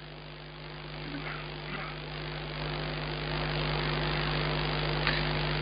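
Steady electrical mains hum with a faint hiss, slowly growing louder.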